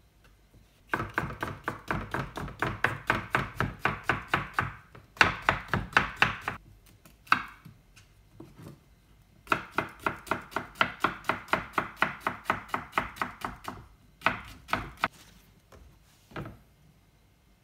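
Chef's knife chopping zucchini into thin strips on a wooden cutting board: quick runs of knife strikes, about five a second, broken by short pauses and a few single cuts.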